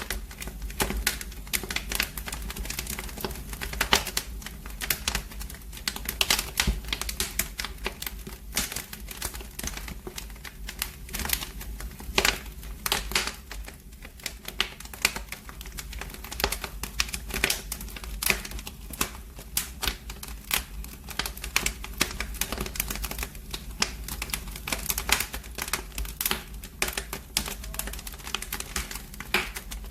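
Fire in a fireplace crackling, with dense, irregular snaps and pops, some sharper and louder than others.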